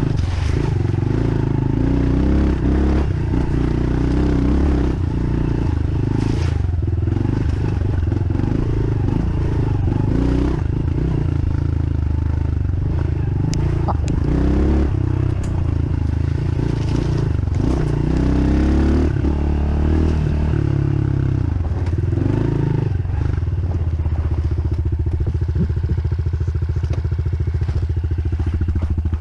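Dirt bike engine running as it is ridden over a trail, its revs rising and falling, with clattering and scraping from the bike over rough ground. Near the end the engine settles into a steady, even beat.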